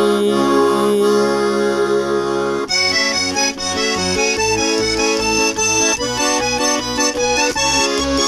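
Accordion playing an instrumental interlude of a song: a held chord for the first few seconds, then a steady rhythmic accompaniment of alternating bass notes and chords.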